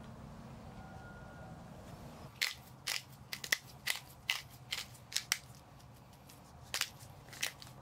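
Pepper mill grinding black pepper: a run of about a dozen sharp, irregular crunching clicks starting a couple of seconds in, then two more near the end.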